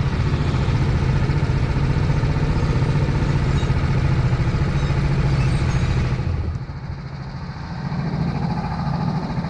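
Go-kart engine heard from on board, running steadily at part throttle, then dropping to a lower, quieter note about six and a half seconds in as the kart eases off, rising slightly again near the end.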